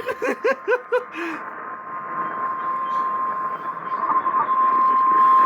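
Weather-radio warning alarm: a single steady high tone, held unbroken as the attention signal before a National Weather Service warning. During the first second or so, a few short bursts of a person's voice sound over it.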